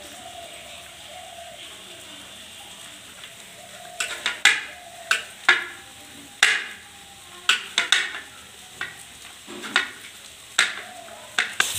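Rice-flour dough being kneaded and pressed by hand on a plate: from about four seconds in, a string of irregular sharp knocks and taps against the plate. Underneath, a faint steady sizzle from the vegetable filling cooking in the pan.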